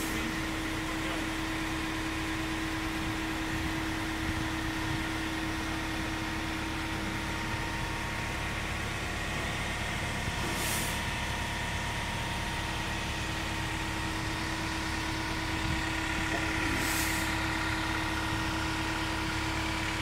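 Steady mechanical drone, like an idling engine, with a constant hum. Three short hisses break in: one at the start, one about halfway through and one near the end.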